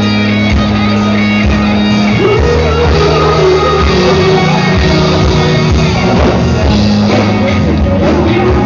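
Rock music with guitar and some singing.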